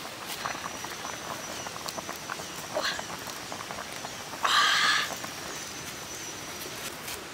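Small open wood fire crackling with many small sharp pops under a boiling pot. A faint steady high whine runs through it, and about four and a half seconds in there is one loud short call, with a weaker one near three seconds.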